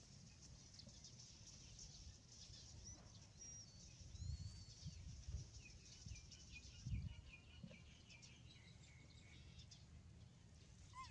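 Quiet outdoor ambience: faint bird chirps over a steady high insect hiss, with a quick run of repeated chirps midway and a few soft low thumps about four and seven seconds in.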